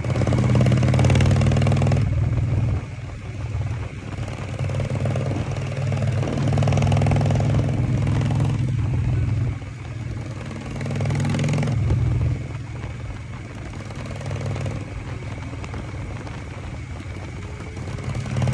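Harley-Davidson Shovelhead V-twin motorcycle running on the road, heard from the saddle, getting louder and quieter several times as it rides along.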